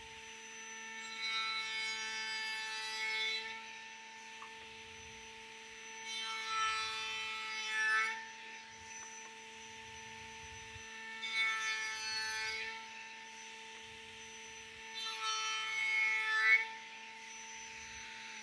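Table-mounted router running with a steady whine while a small door panel is fed across its raised-panel bit four times, each pass bringing a few seconds of louder cutting noise. The router is switched off at the very end, and its pitch starts to fall as it spins down.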